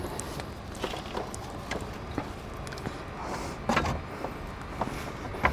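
Light clicks and knocks of a steel electric RV step assembly being shifted and lined up against the underside of a motorhome frame, with a few slightly louder knocks about four seconds in and again near the end.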